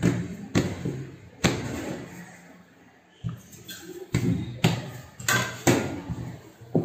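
Hands patting and pressing a slab of risen cakwe (yu char kueh) dough flat on a silicone mat over a stainless-steel worktop, giving a series of irregular soft thuds, about eight in all, bunched in the last few seconds.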